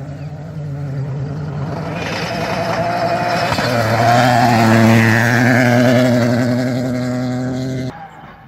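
A rally car's engine held at high revs as the car comes up the stage at speed, growing louder to a peak about five seconds in. The sound cuts off abruptly about a second before the end.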